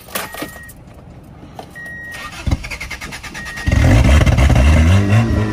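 Honda Civic wagovan's four-cylinder engine being started: the starter cranks briefly and the engine catches about three and a half seconds in, then keeps running loudly. A quick start for this car.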